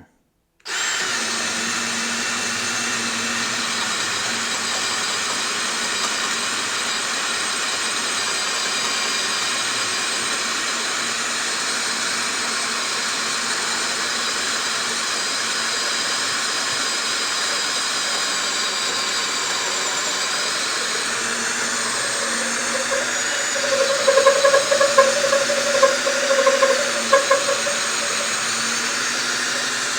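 DeWalt Atomic 20V compact cordless drill running in low gear (speed 1) under heavy load, driving a thick 8-inch fastener: a steady motor and gearbox whine. From about 23 to 27 s it grows louder and uneven, with a squeal-like tone.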